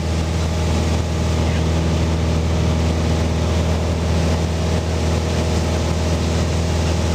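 Single-engine Beechcraft Musketeer's piston engine and propeller running as a loud, steady drone, heard from inside the cockpit as the plane climbs away from the field.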